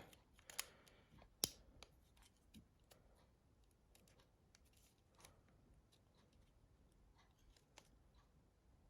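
Near silence broken by faint, scattered clicks and taps of small plastic mobile-phone parts being handled and pressed into place by hand, the sharpest click about a second and a half in.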